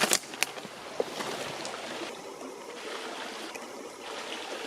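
Creek water running steadily, with a few sharp clicks and taps in the first second.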